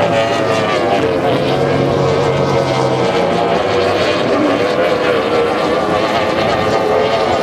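Formula 2 tunnel-hull race boat's outboard engine running at high revs at racing speed: a steady, loud whine that wavers slightly in pitch.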